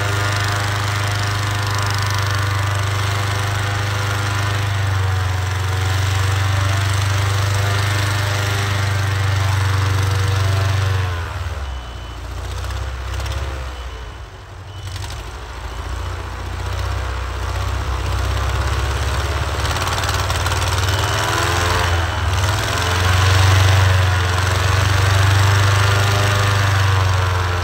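Engine running steadily, its pitch and level dropping about eleven seconds in, lowest around fourteen seconds, then climbing back up to their loudest near the end.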